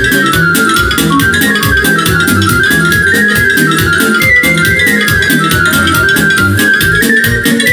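Instrumental break of a Romanian folk song played on a Korg Pa600 arranger keyboard: a quick, stepping melody line over drum, bass and chord accompaniment with a steady fast beat.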